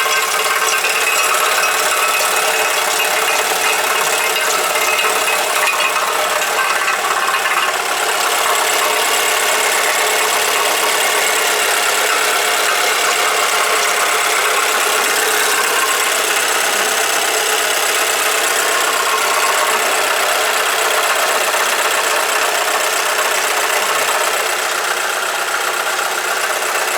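Alfa Romeo GT 2.0 JTS four-cylinder petrol engine idling with a steady knocking rattle. The mechanic hears it toward the front rather than inside the engine, and suspects something loose rattling in the exhaust pipes.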